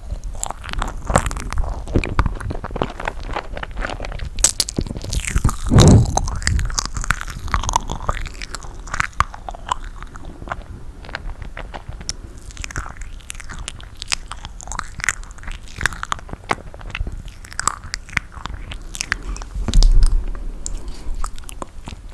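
Close-miked mouth sounds of chewing sticky toasted marshmallow: wet smacking and small sticky clicks in a steady, irregular stream. There are two louder low thumps, one about six seconds in and one near the end.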